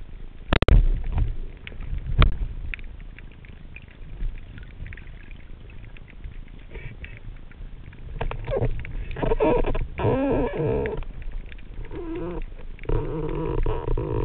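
Speargun fired underwater: a sharp, loud click about half a second in, and a second knock about two seconds in. From about eight seconds, dense crackling and scraping as the spear and its catch are handled underwater.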